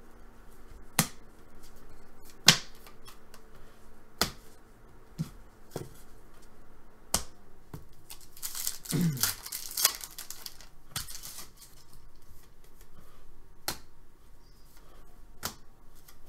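Hockey trading cards handled on a tabletop: a series of sharp clicks and taps as cards and a plastic top-loader are set down and flipped, with a crinkling rustle of a foil card pack's wrapper about nine seconds in.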